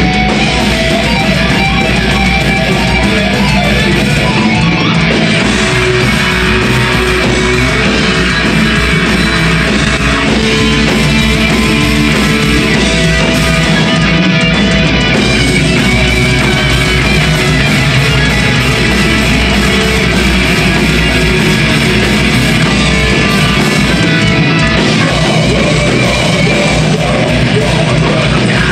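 Melodic death metal band playing live: distorted electric guitars over bass and a dense run of kick-drum hits, loud and unbroken.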